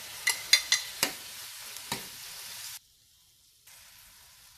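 Squid rings frying in a pan of onions and oil: a steady sizzle, with a metal spoon clinking sharply against the glass dish and the steel pan about five times in the first two seconds. The sound cuts off abruptly just past halfway, then a fainter sizzle comes back.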